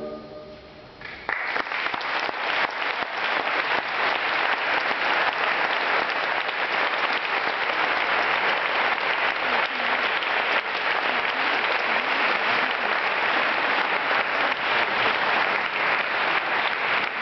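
The choir's final chord fades away in the hall's reverberation, then audience applause starts about a second in and continues steadily.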